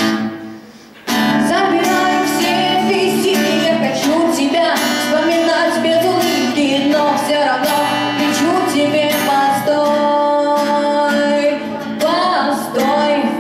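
A live song: a young woman singing with a strummed acoustic guitar, the music coming in about a second in after a quieter moment and ending on a held note.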